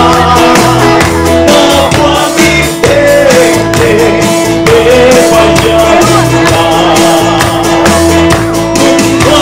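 Live band performing through microphones: men singing a song together, with acoustic guitar strumming and electric bass guitar underneath.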